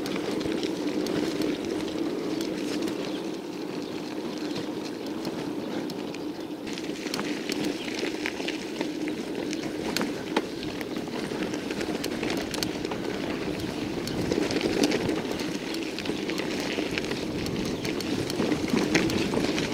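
1991 Scott Montana bicycle being ridden over a rough road: a steady rolling rumble with many small rattles and clicks throughout.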